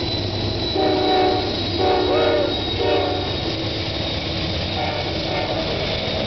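Norfolk Southern diesel locomotive air horn sounding a series of short blasts, three strong ones in the first three seconds and two fainter ones about five seconds in, over the steady rumble of the locomotives and intermodal train rolling past close by.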